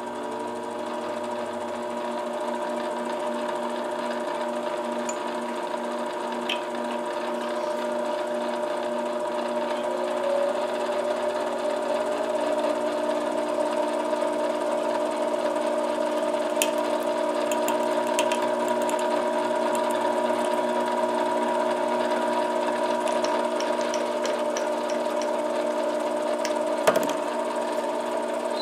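Metal lathe running steadily, its motor giving a hum of several steady tones, while a tapered drill bit in the tailstock chuck bores through a spinning acrylic pipe-stem blank. A few light clicks come near the end.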